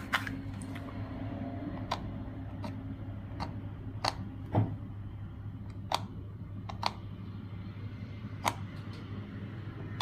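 About ten sharp clicks and scratches at uneven intervals, the loudest about four and a half seconds in: a pointed metal tool scraping through the jumper traces on an LCD TV's T-con board to open them. A steady low hum runs underneath.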